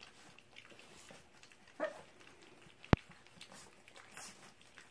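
Old English Sheepdog puppies eating soft food together from a stainless-steel feeding pan: faint wet eating noises with small clicks. A short vocal sound comes just under two seconds in, and one sharp click about three seconds in.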